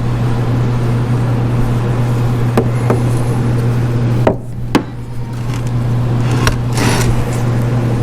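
Hand tools clicking and tapping on the aluminium engine parts a few times, with a short scrape near the end, over a steady low hum.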